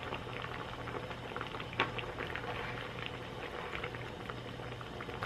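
Pot of spicy Korean army base stew at a boil, bubbling and crackling steadily, with one sharper click about two seconds in.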